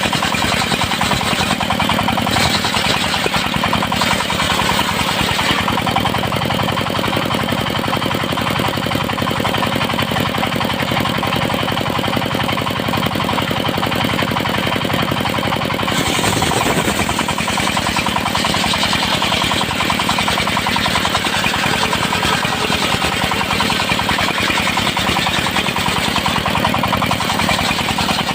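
Engine-driven circular sawmill running steadily, its saw cutting teak into 2 cm boards, with the engine's rapid firing throughout. The sound shifts a little just over halfway through.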